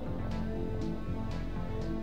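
Background music: held chords with a light, steady beat of about two soft hits a second.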